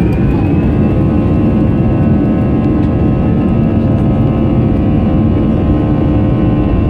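Airbus A321 jet engines heard from inside the cabin during taxi: a high whine rises and then holds steady about a second in, over a loud low rumble.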